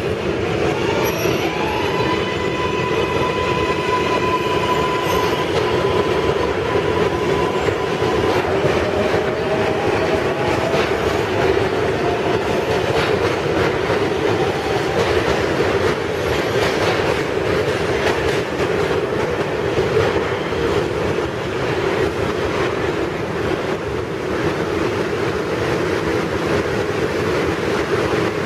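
New York City Subway R142A train running through the station with a steady, loud rumble of wheels on rail. High whining tones sound over the first eight seconds, and a fainter rising tone comes in about nine to twelve seconds in.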